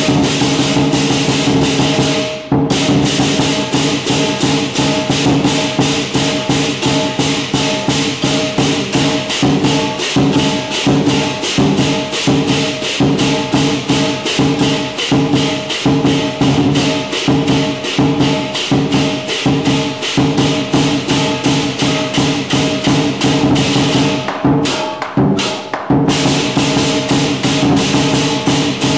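Heshan-style lion dance percussion: a large Chinese drum beaten in a fast, driving rhythm, with cymbals clashing on nearly every beat and a gong ringing underneath. The cymbals let up briefly about two seconds in and again near the end.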